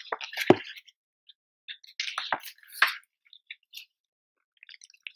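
Paper pages of a picture book being handled and turned by hand: short rustles and soft taps in two brief bursts, the second about two seconds in.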